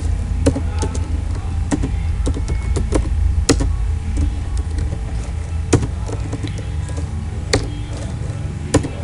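Computer keyboard keys clicking irregularly as code is typed, over a steady low hum.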